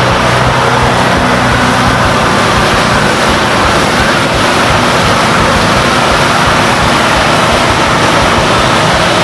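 Off-road utility vehicle's engine running steadily as it drives through shallow floodwater, with water sloshing and spraying under the tyres.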